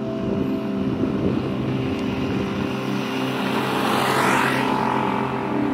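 Ambient background music with sustained tones. A whooshing noise swells up and fades away around four seconds in.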